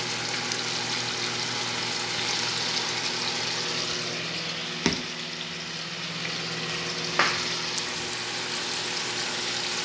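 A pan of sliced mushrooms in a tomato-and-onion broth bubbling and sizzling steadily, simmering uncovered so the broth cooks down. Two sharp knocks, about five and seven seconds in.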